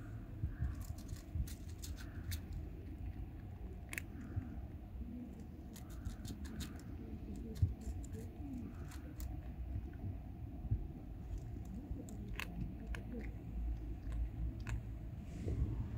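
A cat chewing wet food from a plastic plate, heard as scattered small clicks over a low background rumble.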